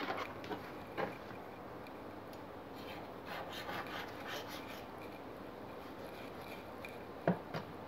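Kitchen knife cutting through raw steak on a cutting board, the meat held with a fork: faint rubbing, scraping strokes with a few light taps. A run of quick strokes comes about three seconds in, and there is a sharper knock near the end.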